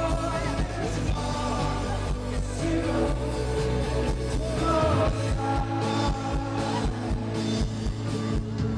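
Rock band playing live with a lead singer, guitars, bass and drums; the low end drops away about five seconds in.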